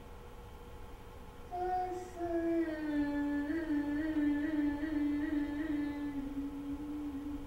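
A woman's singing voice holds one long note from about a second and a half in. The note slides slowly downward with small wavering ornaments and stops just before the end.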